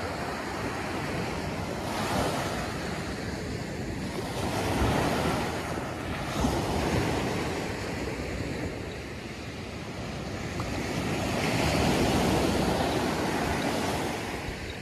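Small ocean surf breaking and washing up a sandy beach, a steady noisy wash that swells and fades with each wave. The loudest swell comes near the end.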